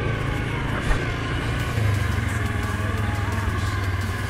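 2019 Suzuki KingQuad 750 ATV's single-cylinder engine running steadily while riding along a dirt trail, with a brief thump about a second in.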